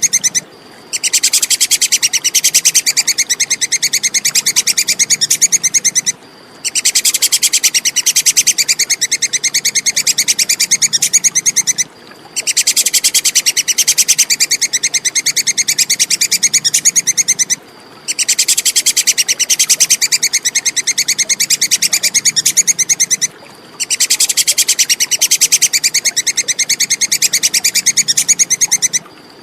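Tupai kekes giving its rapid, high-pitched chattering call in bouts of about five seconds, each broken by a brief pause, repeating evenly like a looped recording.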